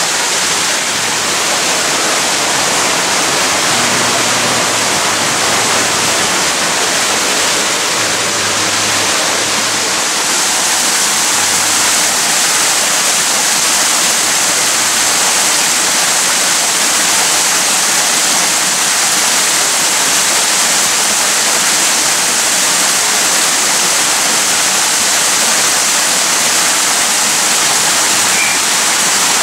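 Small artificial rock-garden waterfall, its water splashing steadily over the stones into a pool.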